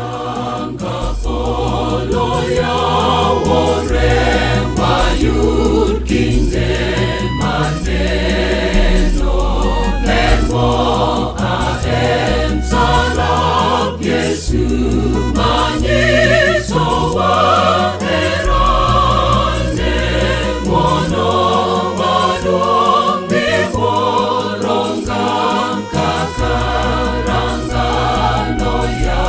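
Choir singing a gospel song over a band accompaniment, with a heavy bass line and a steady beat.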